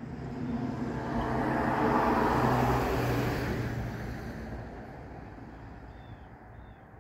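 A car passing by, its engine and tyre noise swelling to a peak about two to three seconds in and then fading away. A few faint bird chirps come near the end.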